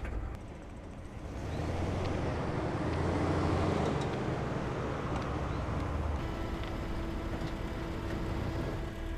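A pickup truck driving past on the road: a rushing tyre and engine noise that swells to its loudest about three to four seconds in, then eases into a steady traffic hum.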